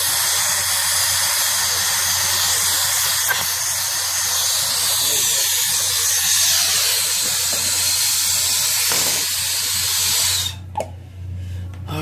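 Brazing torch flame hissing steadily while it heats a copper refrigerant-line joint to unsweat it. The hiss cuts off suddenly about ten and a half seconds in.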